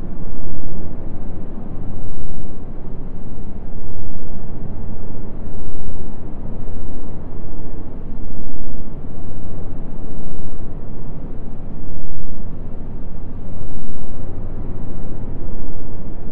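Low rumbling noise with no clear pitch that swells and fades about every two seconds.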